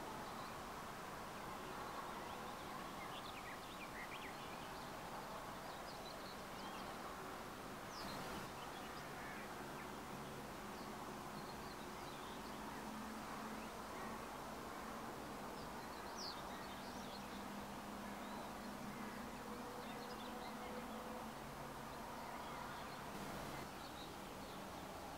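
Open-country ambience: faint, short bird chirps and calls scattered throughout, over a steady low hum.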